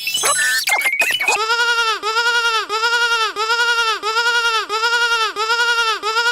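A sheep bleat sound effect looped rapidly, nearly three identical bleats a second, each rising and falling in pitch. About the first second and a half is a jumble of sliding and stepped tones instead.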